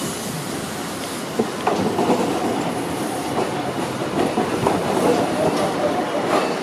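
Hiroshima Electric Railway 1000-series LEX low-floor tram rolling slowly along street track, its wheels clicking over the rails. The running gets louder about a second and a half in.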